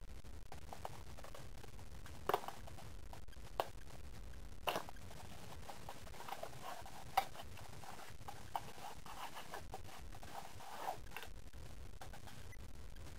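Handling of perfume bottles and their cardboard boxes on a desk: a few short, light clicks and knocks spaced a second or more apart, with soft rustling between them, over a low steady hum.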